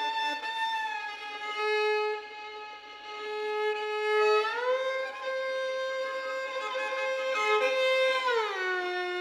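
A violin holding long notes, often two at once, that slide up together about halfway through and slide down together near the end, in a contemporary experimental piece.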